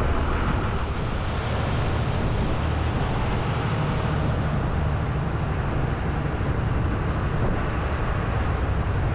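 Boat engine running steadily under way, a low rumble mixed with wind buffeting the microphone.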